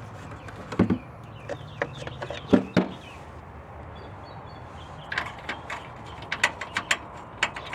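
Metal hand-tool clicks and clinks as a wrench is fitted and worked on the exhaust flange bolts: a few separate knocks, then from about five seconds in a run of quick, irregular clicks.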